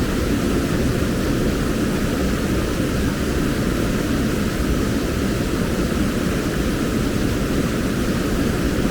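Waterfall and pool water rushing, a loud, steady, even roar.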